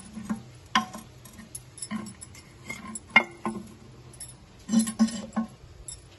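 Porcelain figurines being picked up and set down in a glass showcase, clinking and knocking against the glass shelf and each other: a string of separate sharp clinks, the loudest about three seconds in.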